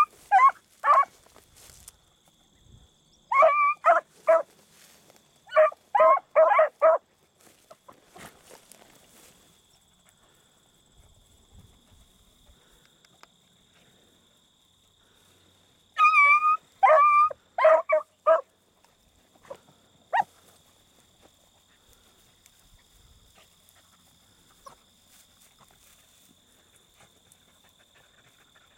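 Beagles baying on a scent trail in short, pitched yelps that come in bursts of a few quick calls. The bursts come near the start, a few seconds in, and again about sixteen seconds in, with the second half mostly quiet apart from a faint steady high tone.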